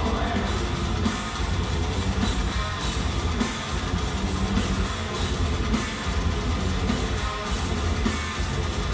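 Heavy metal band playing live: distorted electric guitars over drums hitting on a steady beat, with no vocals.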